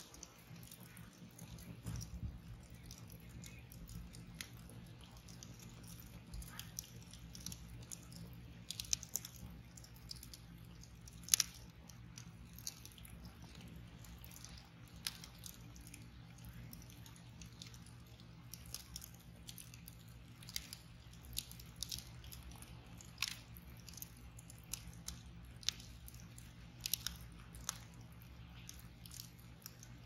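Wood fire crackling: a log burning on embers in a metal fire ring, giving irregular sharp pops and snaps, the loudest about eleven seconds in.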